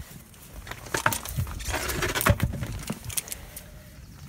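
Scattered light metallic clicks and knocks, some close together, as tools and parts are handled around a car's front suspension.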